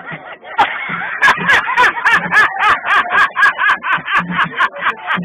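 A man laughing hard and without stopping, in rapid, even bursts of about five a second, high in pitch.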